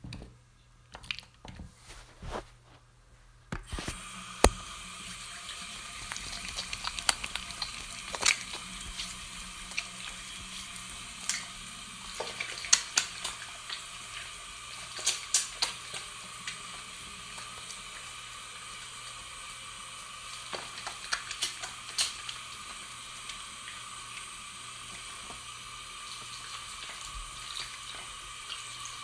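Hands being washed under a running sink tap. A few small clicks and knocks come first, then the water starts about four seconds in and runs steadily, with repeated splashes and spatters from the hands under the stream through the middle, settling to an even flow later on.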